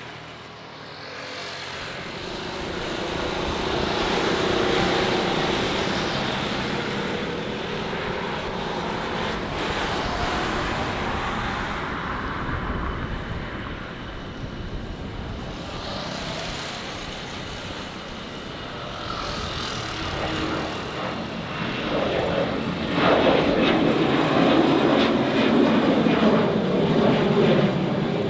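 Jet engines of an Airbus A320 at takeoff power: a continuous roar that builds over the first few seconds, with a faint whine riding on it, and grows loudest about two-thirds of the way through.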